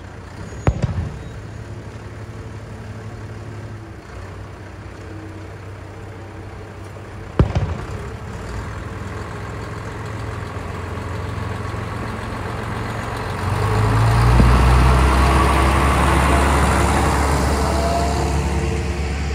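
Diesel railcar's engine running at low speed, with two sharp firework bangs, one about a second in and one about seven seconds in, each with a rumbling tail. About thirteen seconds in the railcar's engine comes up loud and heavy as the car pulls away and passes close by.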